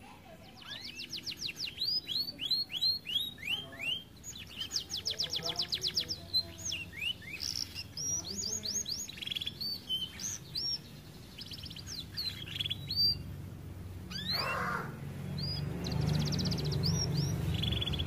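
Yellow domestic canary singing: rapid trills and runs of quick rising whistled notes, one phrase after another. A low background rumble builds over the last few seconds.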